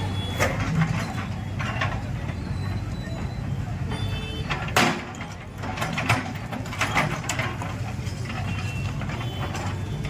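Diesel engine of heavy demolition machinery running steadily, with scattered knocks and clatter of debris and one loud crash about five seconds in.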